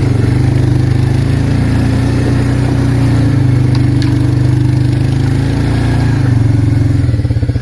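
Arctic Cat 366 ATV's single-cylinder four-stroke engine running at steady, fairly high revs, easing off about six seconds in and dropping toward a slower, lumpier idle near the end.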